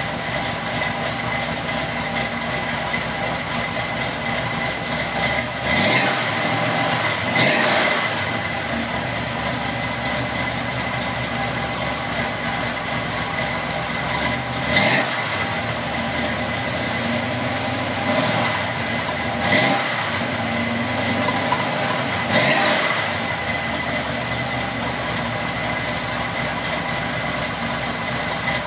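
Dodge Caravan engine idling steadily, blipped up in about five short revs.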